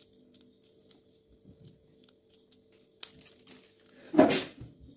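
Small kitchen knife cutting a red bell pepper into small pieces, a series of light crisp snicks as the blade goes through the flesh, with one louder crunching cut about four seconds in. A faint steady hum runs underneath.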